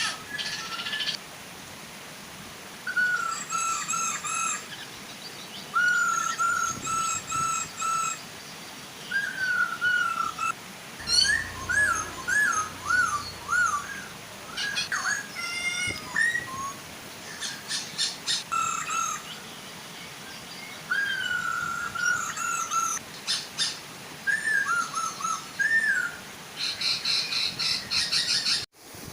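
Masked laughingthrushes (Hong Kong poksay) calling in bouts of loud, repeated whistled notes that slide up and down, over the soft steady hiss of a small waterfall.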